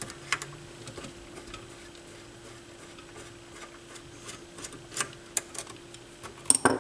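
Scattered light clicks and taps of a screwdriver and hands working on a turntable's chassis to remove its drive motor, over a faint steady hum.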